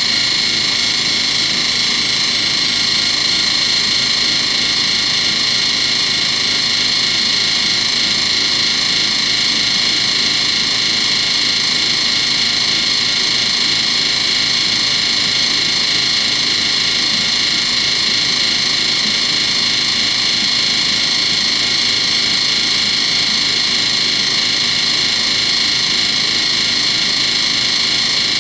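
Miele WMV960 washing machine running with a loud, steady high-pitched whine over a hiss, unchanging throughout; its owner takes the noise for a fault.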